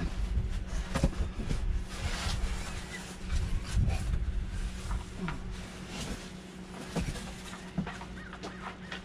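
Wind buffeting the microphone in gusts, with scattered knocks and rustles of boxes and parts being handled during unpacking. A steady low hum runs underneath.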